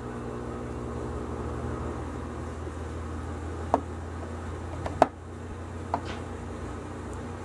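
Steady low background hum with a few held tones. Three small sharp clicks, the loudest about five seconds in, come from handling a super glue bottle and a thin aluminum tube.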